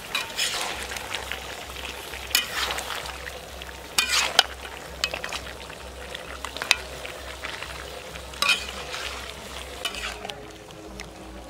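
Chicken curry with potatoes sizzling in hot spiced oil as it is dry-fried (kosha), while a flat metal spatula scrapes and turns it in the pan. Several louder scrapes of the spatula against the pan stand out, the strongest about four seconds in.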